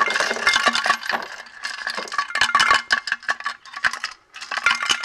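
Nuts and bolts rattling inside a small metal lawnmower gas tank as it is shaken upside down, some dropping out and clinking into a plastic tray. They are the loose hardware used to scour rust from inside the tank. A rapid, dense clatter with a brief lull about four seconds in.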